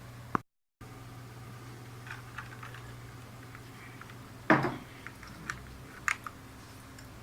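Scattered key presses on a Cougar Ultimus mechanical keyboard with Cherry MX Red switches, as separate clicks with one louder knock a little past the middle, over a steady low hum.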